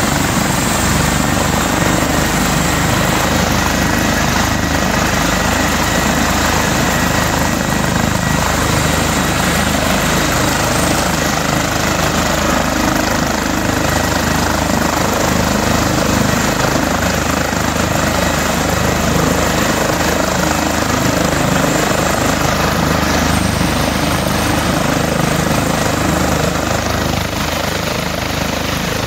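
Airbus H145 helicopter running on the ground: a steady turbine whine over the rush of the turning rotors, dipping slightly in level near the end.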